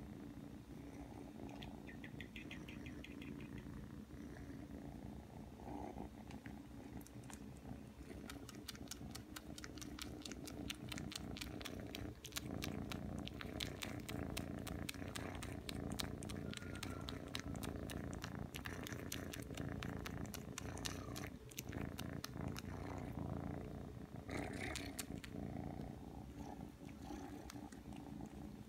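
Ragdoll kitten purring steadily while suckling on a cloth, with a fast run of small sucking clicks from about a quarter of the way in, and a brief run again near the end.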